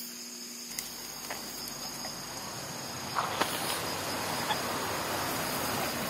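Insects chirring steadily outdoors, with a few faint clicks a little past halfway.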